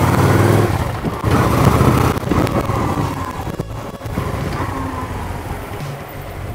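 Cruiser-style motorcycle engine riding past, loud at first and then fading as it moves away, its pitch dropping as it passes. This is a test ride on a used bike, and it runs normally with no faults heard.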